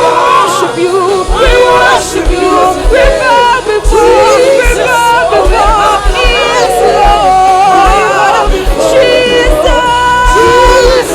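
Gospel worship song: voices singing with gliding, melismatic lines over band accompaniment with a low, repeated drum beat.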